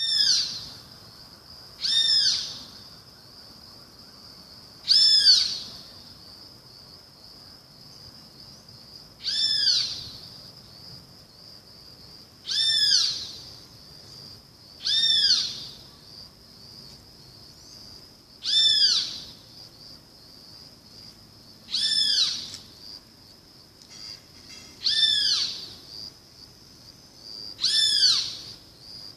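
Great kiskadee (bem-te-vi) calling: a loud arched call repeated about ten times, every two to four seconds. A faint steady high tone runs underneath.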